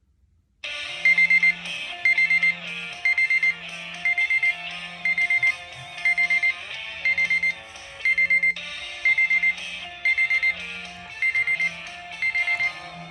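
Old Samsung U800 mobile phone's alarm tone starting just under a second in. A short electronic melody loops under a bright pattern of four quick beeps that repeats about once a second.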